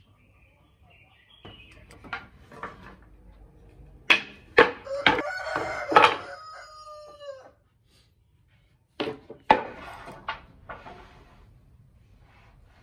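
Hardwood strips knocking together as they are picked up and stacked, two clusters of sharp wooden clacks a few seconds apart. Over the first cluster a long animal call is heard, falling in pitch at its end.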